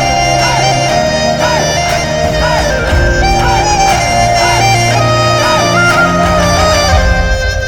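Film background music: a reedy wind-instrument melody with bending, ornamented notes over a steady bass line.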